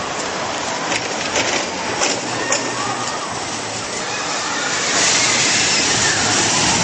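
Pepsi Max Big One steel roller coaster train running along its track, its rumble growing louder about five seconds in as it comes out of the tunnel and passes close by.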